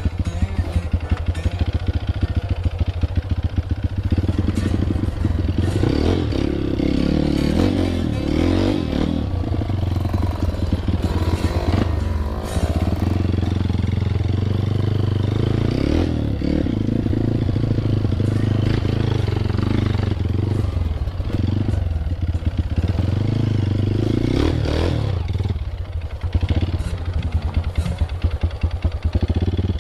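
Single-cylinder dirt bike engine running at low trail speed, its note swelling and easing a few times, with clattering knocks from the bike over rough ground.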